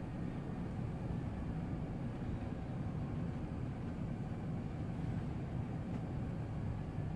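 Steady low roar of an Airbus A380 climbing after takeoff: jet engine and airflow noise, even throughout with no change in pitch.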